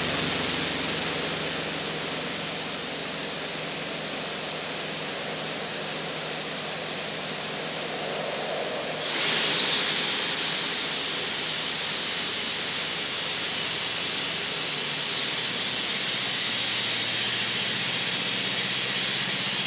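Compressed-air jet tube blowing air through the pond water, a steady hissing rush of air and churning water. It gets louder and brighter about nine seconds in.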